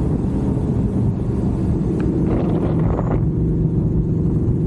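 Honda VFR800 Interceptor's V4 engine running at a steady cruise under way, its pitch holding level, with low wind rumble on the microphone.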